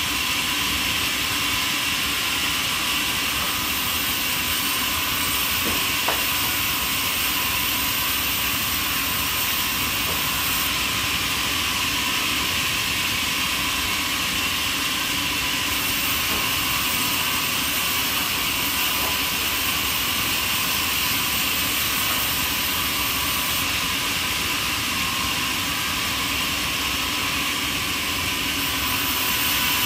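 A steady, even hiss that does not change or pause.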